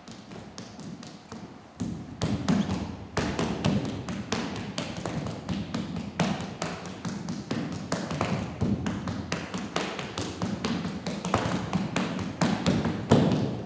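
Dancers' sneakers tapping, scuffing and stomping on a stage floor in quick percussive footwork, faint at first and turning dense and louder about two seconds in.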